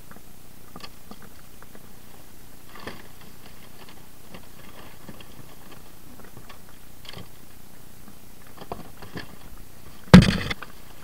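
Rubbish being sorted through by hand in a dumpster: scattered light knocks and rustles, then one loud bang with a short ring about ten seconds in.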